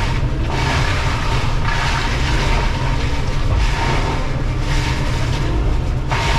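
Excavator running with a Shearex VM-40 forestry mulcher head working: a heavy steady low drone with a constant high whine, and a harsh grinding noise that swells and fades every second or two.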